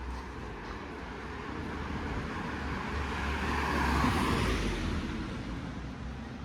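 A road vehicle passing by on the street: its engine and tyre noise swells to a peak about four seconds in, then fades.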